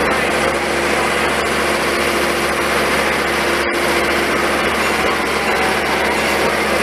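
An idling engine running steadily, with a constant hum under an even wash of noise. The sound drops out for an instant a little before four seconds in.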